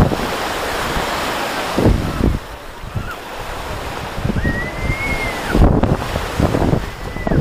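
Small waves washing onto a sandy shore, with wind buffeting the microphone in gusts. A thin, high whistling tone sounds twice in the second half.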